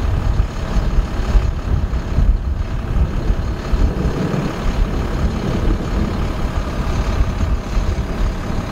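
Strong wind buffeting the microphone: a loud, uneven low rumble that rises and falls with the gusts.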